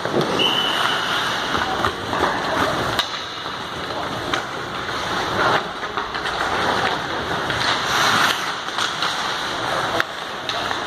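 Hockey rink sounds: skate blades scraping and carving the ice in a continuous hiss, with a few sharp clacks of puck on stick or boards.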